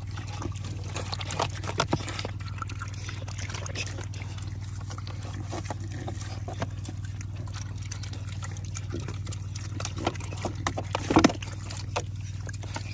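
Two young pigs eating chopped watermelon from a tub of juice and water: wet slurping, chomping and lapping with many small irregular clicks, and a louder cluster of smacks about eleven seconds in.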